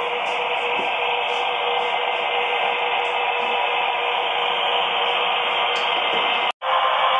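HO scale model diesel locomotive running on the layout track: a steady hiss with a faint constant hum. The sound drops out for an instant about six and a half seconds in.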